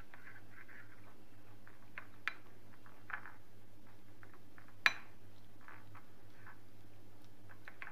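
Metal spoon stirring flour and water into a paste in a glass bowl: soft scraping with scattered clinks of the spoon against the glass, the sharpest clink about five seconds in.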